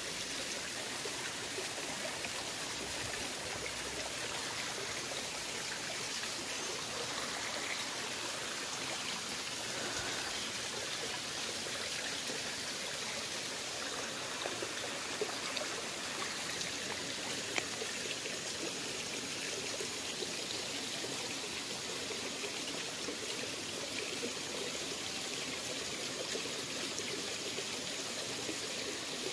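Shallow rocky stream running steadily, with water trickling and splashing over stones. A few faint clicks sound about halfway through.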